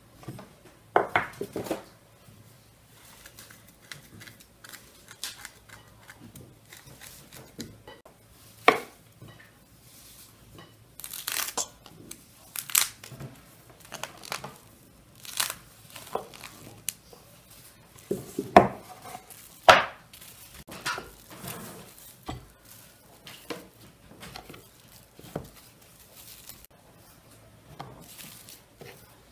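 Plastic cling film pulled off its roll, cut and crinkled as it is wrapped around stacks of dough rounds on a wooden board, with scattered knocks and taps from things set down on the board.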